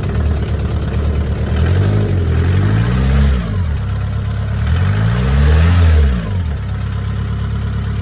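VW Mk4 engine running cold just after starting, revved twice and settling back to idle each time, with no starter whine now that the starter has been greased.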